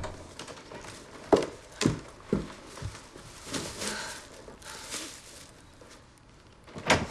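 Footsteps, four steps about half a second apart, followed by soft rustling and a single knock near the end.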